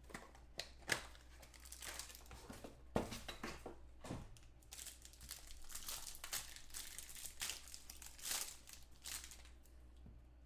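Football trading card pack wrapper being torn open and crinkled in the hands, with the cards and box handled. It comes as irregular crackling rustles, with a couple of sharper snaps about three and four seconds in.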